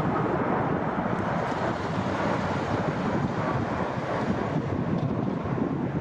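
Jet airliner engines running with a steady, loud rushing noise that holds level throughout.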